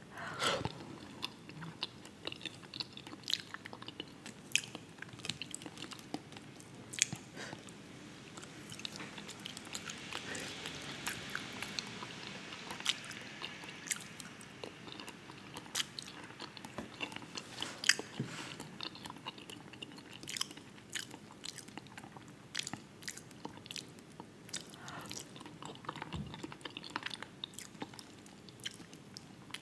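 Close-miked chewing and biting of a meal of fried croaker fish and sliced potatoes in onion dip, with many sharp mouth clicks throughout.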